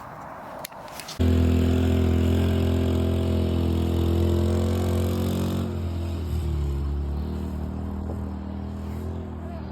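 Quad bike engine idling steadily, starting suddenly about a second in.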